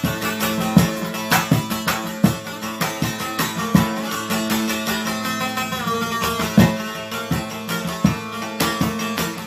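Instrumental music: a plucked string instrument playing a fast run of notes over a steady beat, with a short sliding note near the middle.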